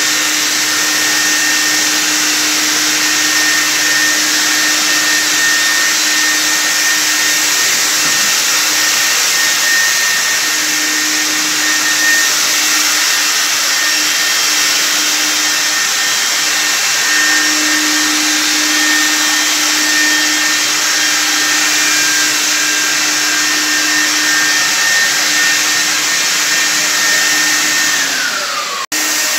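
Handheld corded electric ULV cold fogger running steadily, its blower motor whining as it sprays disinfectant mist. Near the end the motor's pitch falls and the sound cuts off abruptly.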